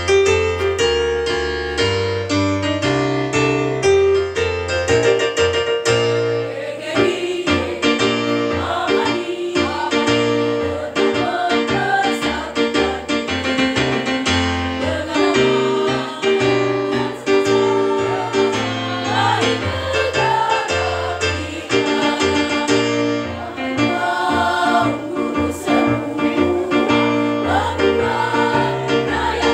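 Women's choir singing to electric keyboard accompaniment, the keyboard holding sustained chords over a moving bass line. The keyboard plays alone at first, and the choir's voices come in about six seconds in.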